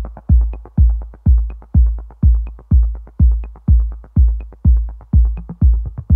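Electronic intro music with a steady deep kick drum, about two beats a second, and light ticks between the beats.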